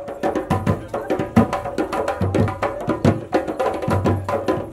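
Music carried by a busy drum rhythm: quick, sharp strikes over regular low drum beats, with a few held tones above.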